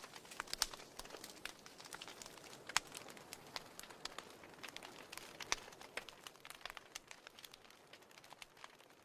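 Campfire of burning logs crackling: faint, irregular sharp pops and snaps over a low hiss.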